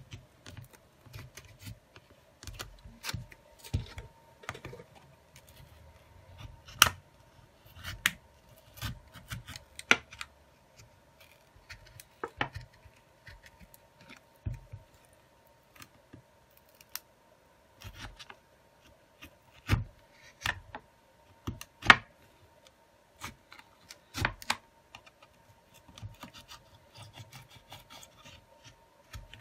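A thin plastic opening pick scraping and clicking along the seam of a Huawei Nova 7 smartphone as it is worked open. The clicks and scrapes come irregularly, with a few sharper snaps, the loudest about 7 and 22 seconds in, over a faint steady hum.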